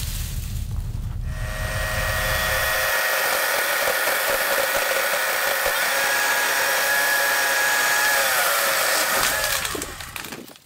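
Atlas 40V battery electric chainsaw running and cutting through palo verde branches, its motor giving a steady whine. The whine sags in pitch near the end, and then the sound drops away.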